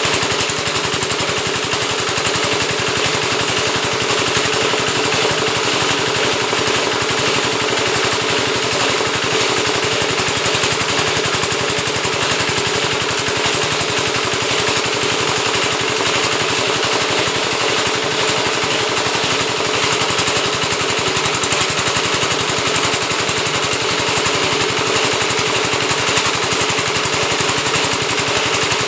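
Oil palm frond rib (lidi) scraping machine running steadily, a loud, fast, even mechanical rattle.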